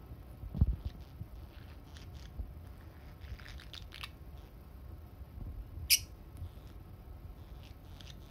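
A budgerigar and a peach-faced lovebird making a few faint, short, high chirps, with one sharp high chirp about six seconds in. A low thump comes just after the start.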